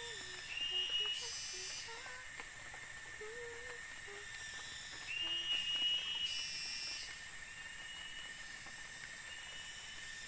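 Forest insect chorus: a steady high drone and a constant whistling tone. Louder, shrill pulsing calls swell in and stop twice, each lasting one to two seconds.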